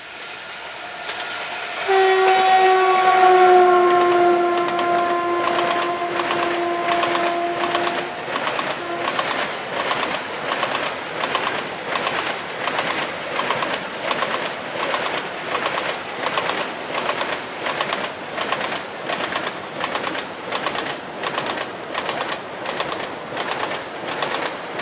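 WAG-7 electric locomotive's horn sounding one long blast of about six seconds, its pitch sagging slightly as the locomotive passes. Then the loaded grain freight wagons roll by, their wheels clattering in a steady rhythm.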